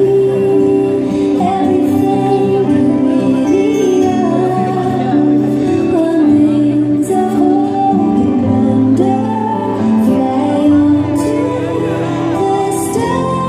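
Loud show soundtrack music with singing over held, shifting chords.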